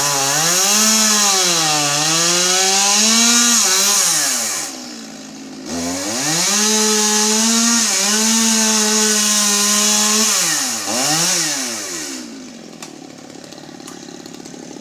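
A two-stroke chainsaw cutting through pine wood, its engine speed rising and falling under load. About five seconds in it bogs down almost to a stall, then revs back up, and near the end it drops to idle. The saw keeps stalling in the cut, which is put down to the cutting angle.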